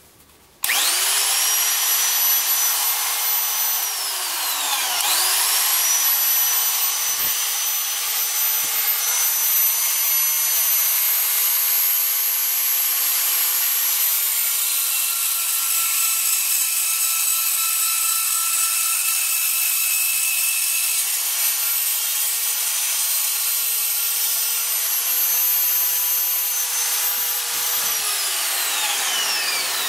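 DeWalt DW660 corded cut-out tool spinning up to a steady whine at about 30,000 rpm, briefly winding down and spinning back up about five seconds in, then running while its bit cuts through 1/8-inch Lexan polycarbonate sheet. Near the end it is switched off and the whine falls in pitch as the motor spins down.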